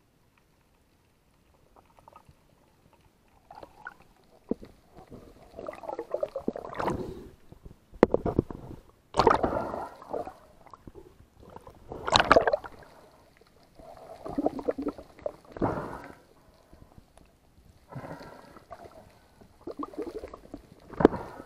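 Muffled water sloshing and gurgling through an underwater camera housing near the surface, in irregular surges every two to three seconds.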